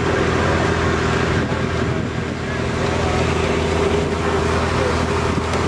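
Engine of a wooden river slow boat running at steady cruising speed, an even drone of several constant tones under a rush of water and wind noise.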